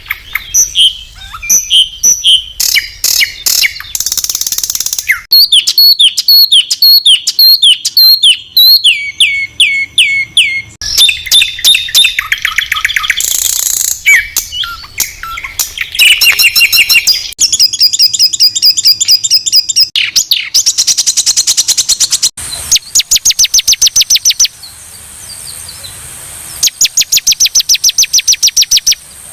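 Loud, high-pitched songbird song of the 'tembakan kasar' kind used as masteran for competition birds: fast runs of rough repeated notes and quick whistled trills, one phrase giving way to the next every few seconds.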